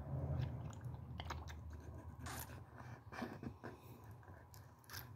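Plastic snuffer bottle sucking water and flour gold out of a gold pan: faint irregular slurps and small crackling clicks as the bottle is squeezed and released, over a low hum that fades in the first couple of seconds.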